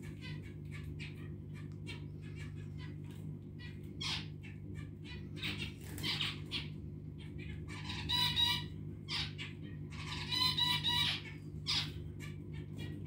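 Caged zebra finches calling: a scatter of short chirps, with louder clusters of repeated calls twice in the second half. A steady low hum runs underneath.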